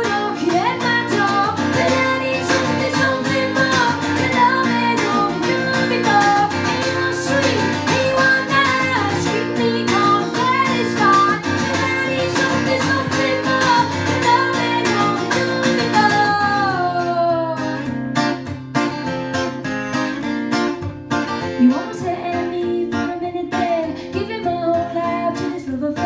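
A woman singing live to her own strummed acoustic guitar. About two-thirds of the way through, her voice slides down and drops out, leaving the guitar strumming on its own until she comes back in near the end.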